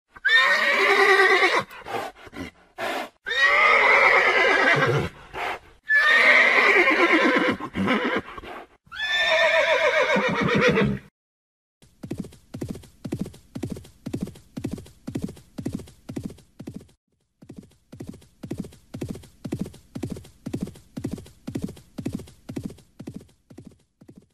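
A horse whinnies four times in long, wavering neighs. Then come hoofbeats: a steady clip-clop at about two beats a second, with one short pause.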